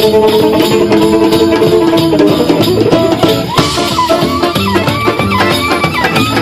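Traditional folk music played by several instruments: a held melody in the lower range, then a higher melody line with sliding, bending notes entering about halfway through, over plucked strings and percussion.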